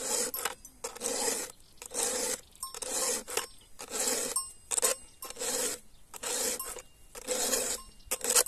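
Round file rasping across the steel cutters of a Stihl chainsaw chain, sharpening by hand in a steady run of strokes, roughly one every 0.7 s, at normal working speed.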